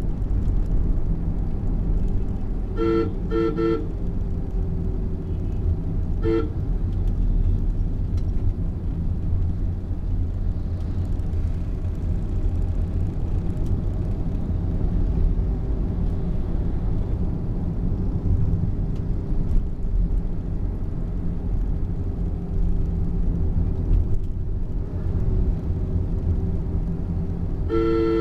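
Steady low engine and road rumble heard from inside a moving vehicle, with a horn sounding two notes together in short toots: two quick toots about three seconds in, a single brief toot a few seconds later, and another near the end.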